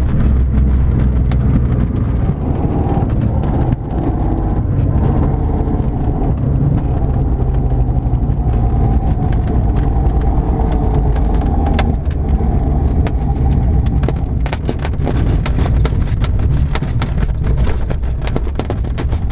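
Schempp-Hirth Arcus E glider rolling out after landing, heard inside the cockpit: a loud, low rumble from the wheel on the ground. In the last several seconds, as it runs onto rough grass, it is joined by many clicks and knocks of the airframe rattling over the bumps.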